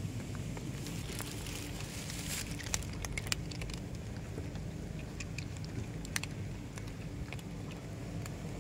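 Cats crunching dry cat kibble: scattered small crackly clicks over a steady low rumble.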